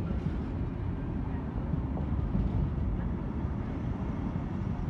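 Container wagons of a freight train rolling past on the track: a steady low rumble.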